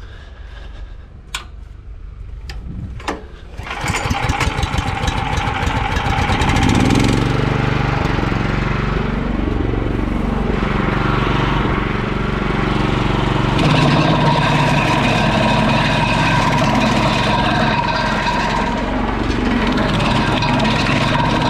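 Petrol-engine wood chipper running: a low engine hum and a few sharp clicks, then about four seconds in it comes up to full speed with a loud, dense mechanical noise. The engine's pitch sags and recovers several times as the machine chips.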